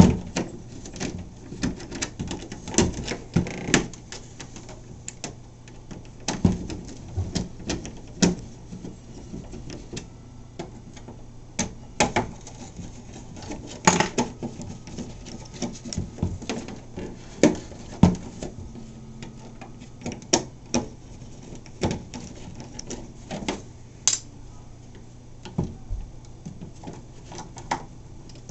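A small precision screwdriver clicking and scraping in the screws of an RC boat's plastic hull as they are backed out, with the screws and fingers tapping on the hull. The clicks are irregular, sometimes in quick runs and sometimes a few seconds apart, over a faint steady low hum.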